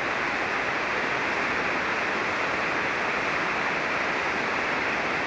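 Steady hiss of band noise from an amateur radio receiver on 40-metre SSB, with no station transmitting on the frequency.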